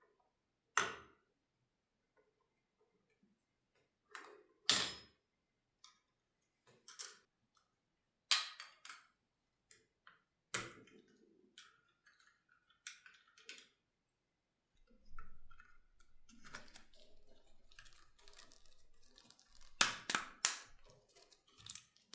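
Clicks and knocks of PC hardware being handled and fitted by hand, one every second or two at first. Then comes rustling and scraping, with a quick cluster of sharp clicks near the end.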